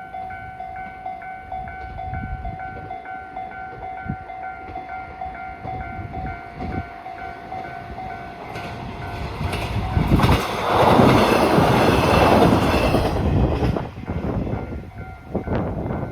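Japanese level-crossing alarm bell ringing in a steady repeating pattern. About ten seconds in, a train passes over the crossing; for about four seconds its rush and wheel clatter is the loudest sound, with the bell still ringing under it.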